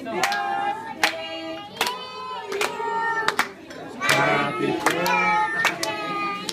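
A group of adults and children singing a birthday song together, clapping along in a steady beat of about one clap every second.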